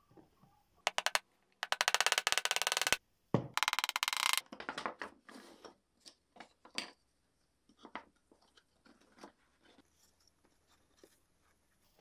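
Small hammer tapping on a pine slat box: two rapid runs of sharp taps, followed by scattered single light knocks on the wood.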